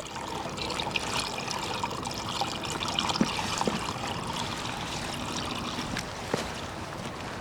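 Water running out of a pipe into a pond, a steady trickling, splashing flow with a few small sharp clicks; the pipe is flowing heavily with the pond filled up.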